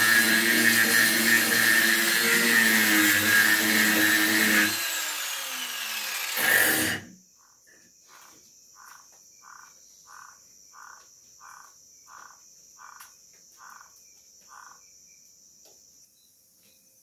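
Angle grinder with a sanding disc running against a wooden slab, then spinning down about five seconds in, with a brief loud burst near seven seconds. After that, a faint steady high insect trill, and about ten short, evenly spaced calls, roughly one every 0.7 s.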